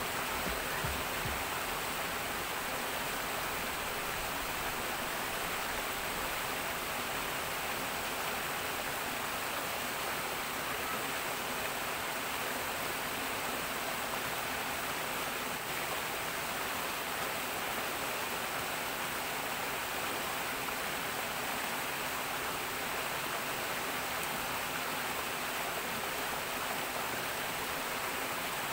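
Water rushing and churning into a pool through a strong inflow, a steady rushing sound.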